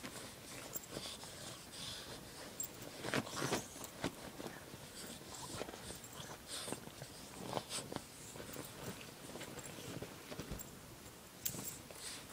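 Boston Terrier digging and pawing at bed sheets and a duvet to make its bed, with irregular scratching and fabric rustling. The busiest scratching comes about three seconds in.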